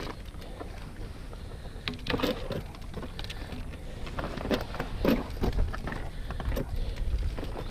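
Irregular footsteps, scrapes and knocks of boots and knee pads on rough rocks as someone clambers over a rock wall, over a steady low rumble.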